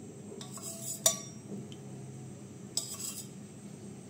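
Cooking oil being poured into an empty metal kadhai, with a sharp clink about a second in and a few short, softer clatters of the container and pan over a steady low hum.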